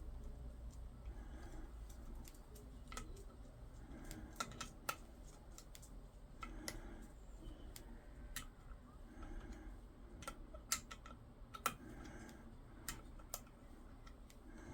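Irregular light clicks and taps of small brake caliper parts being handled and fitted by hand, with a few sharper knocks a little way in and again past the middle, over soft rustling.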